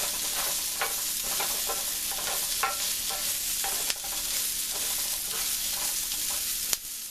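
Potatoes and onions frying in butter in a cast iron skillet: a steady sizzle, with a utensil scraping and turning them at short intervals and a sharp tap near the end.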